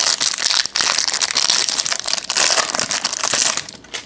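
Foil wrapper of a 2017 Bowman Platinum baseball card pack crinkling and crumpling in the hands as the pack is opened. The crackling stops about three and a half seconds in.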